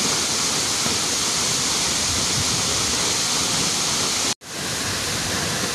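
Steady rush of a waterfall about 30 metres high pouring into its pool, an even wash of falling water. It cuts out for an instant about four seconds in, then resumes.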